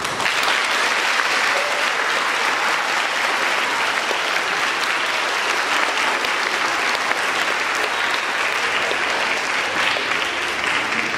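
Crowd of schoolchildren clapping, a steady dense applause that eases off near the end.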